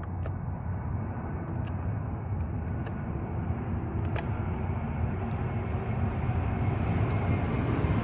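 Steady low outdoor rumble, with faint scattered clicks from a pencil tip pressing the buttons of a garage door keypad.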